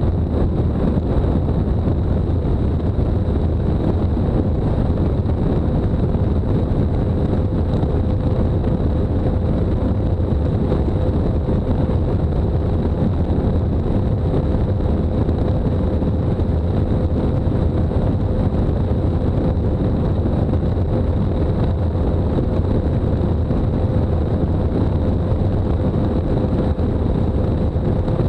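Mercury outboard engine running flat out as the powerboat holds high speed across the water, a steady unchanging engine note, with wind rushing over the microphone.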